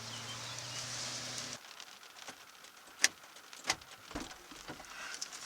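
Rain falling, with a steady low vehicle engine hum underneath, both cutting off suddenly about a second and a half in; after that, scattered sharp taps and clicks.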